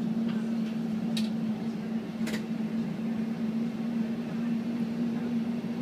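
Steady hum and running noise of a city bus on the move, heard from inside the passenger compartment, with a couple of short rattles about one and two seconds in.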